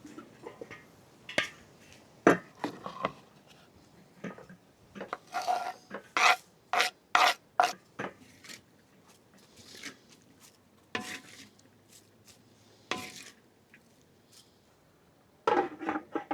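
Irregular short scraping and rubbing strokes of hand food preparation against wood, coming in clusters with quiet gaps between.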